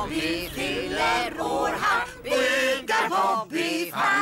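Several voices singing together in short phrases with brief pauses between them.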